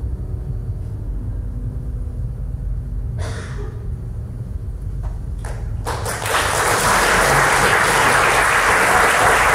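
The grand piano's final chord dies away, followed by a few seconds of hush with a brief noise and a couple of single claps. About six seconds in, the audience breaks into full applause, which continues steady and loud.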